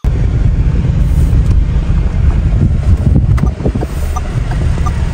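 Loud, steady wind buffeting on the microphone from a moving car: a heavy low rumble. Near the end a turn signal starts ticking, about once every 0.7 s, as the car slows almost to a stop.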